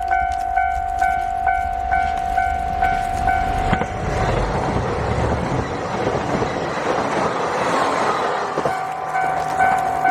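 Level-crossing warning bell dinging about twice a second. About four seconds in, a diesel train runs over the crossing and the rush of its passing drowns out the bell. The bell is heard again near the end.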